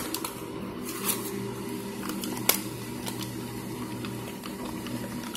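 Powdered starch poured from a box onto a pile in a bowl: a soft patter of small ticks and rustles, with one sharper click about two and a half seconds in, over a steady low hum.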